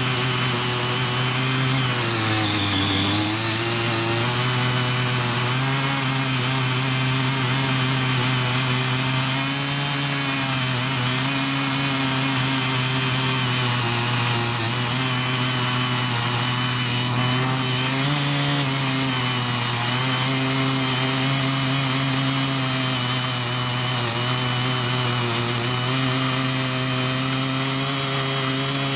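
CY50 mini power tiller's small petrol engine running steadily under load as its rotary tilling blades work the soil. The engine's pitch dips briefly about two to three seconds in and then recovers.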